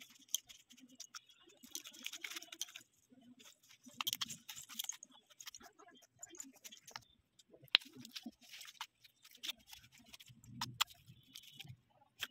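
Purple glitter slime being squeezed, kneaded and stretched by hand, giving faint, irregular squishy clicks and crackles.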